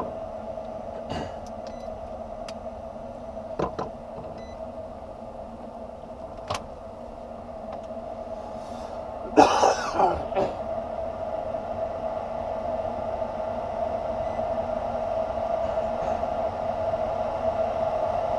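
A freshly replaced inducer motor on a York gas furnace running with a steady hum, growing louder over the second half. There are a few light clicks, and a brief loud noise about halfway through.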